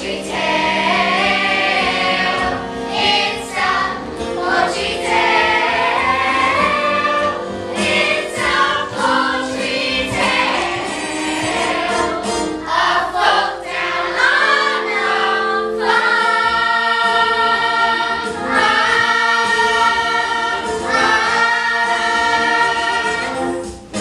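A young stage cast singing together in chorus over instrumental accompaniment, a musical theatre number, with long held notes in the second half.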